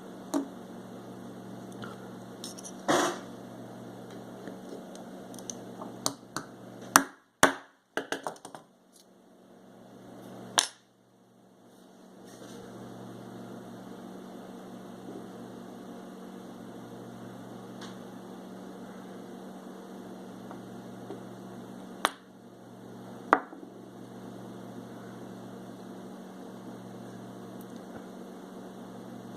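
Steady electrical hum with scattered sharp clicks and knocks: one about 3 seconds in, a quick cluster a few seconds later, and two more near the two-thirds mark. The hum briefly drops away in the middle.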